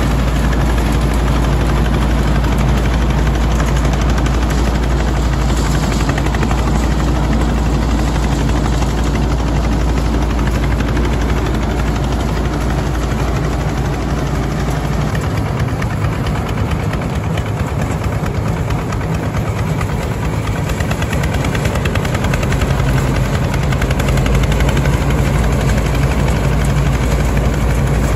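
The engine of a self-propelled grass-cutting tractor runs steadily under load while its cutter and blower chop standing grass and blow it into the trailer cage. The low rumble shifts for a few seconds around the middle, then settles again.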